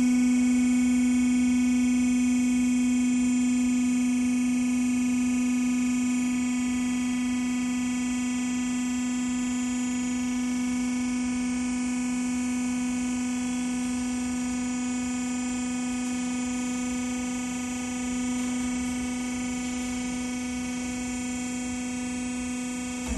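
Hydraulic lift unit of a planetary mixer running steadily as it raises the mixing head, a constant electric hum-whine that eases slightly in level. It cuts off at the very end, when the head reaches its limit switch.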